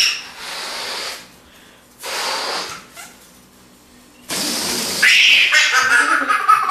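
A toddler makes a few short breathy huffs, then a loud high-pitched squeal about five seconds in that falls in pitch.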